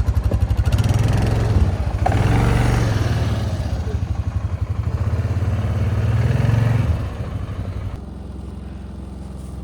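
Vehicle engine working hard through deep snow, revving and running under load. About seven seconds in it eases off and settles to a quieter, steady idle.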